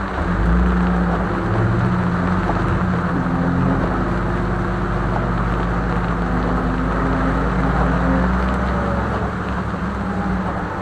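1973 Jeep CJ-5's engine running steadily as it is driven along a rough track, its pitch shifting a little with the throttle, over a constant rushing noise.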